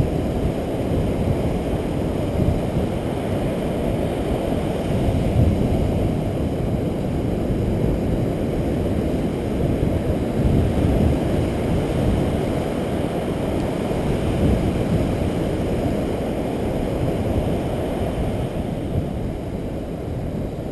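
Steady low rumble of wind buffeting the microphone, mixed with the wash of surf on the beach, swelling and easing a little.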